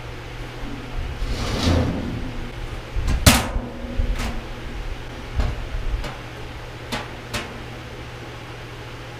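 Sheet-metal parts of a steel-drum barbecue being handled and fitted: a scraping slide, then several irregular knocks and clanks, the loudest about three seconds in, over a steady low hum.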